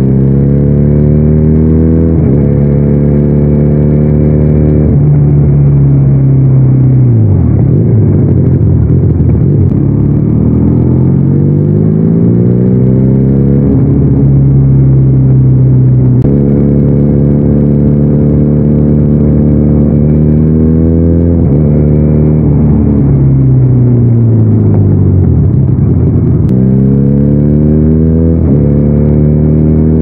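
Benelli 302R's parallel-twin engine heard from the rider's seat while riding, its pitch rising under acceleration, stepping at gear changes, holding steady for a stretch in the middle, and falling away as the bike slows.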